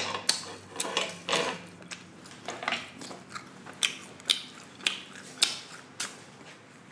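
Close-miked eating sounds: chewing food, with irregular sharp wet clicks about one or two a second.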